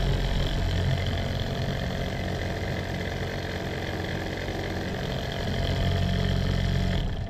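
Small electric motor and gearing of a homemade RC tractor driving its spinning rotavator, a steady mechanical whir with a gear whine. It grows a little louder about five seconds in and stops abruptly at the end.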